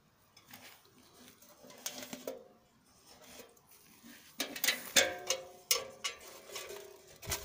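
Plastic pillar-style letterbox lid being lifted and handled: a few faint knocks at first, then a run of sharp plastic clicks and clacks in the second half.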